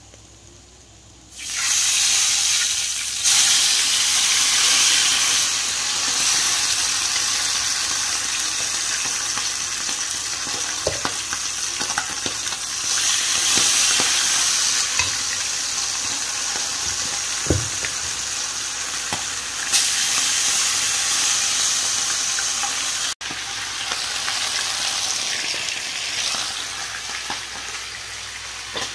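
Floured fish going into hot oil in a frying pan, starting a loud, steady sizzle about a second and a half in. The frying keeps on with scattered pops and the odd click of a spatula turning the fish.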